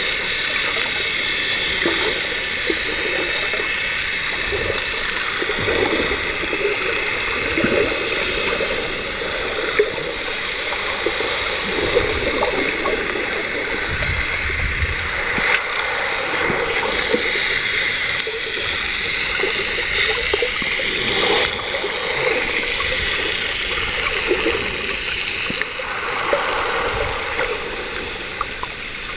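Water gurgling and sloshing around an underwater camera, with many small irregular pops and bubbling sounds.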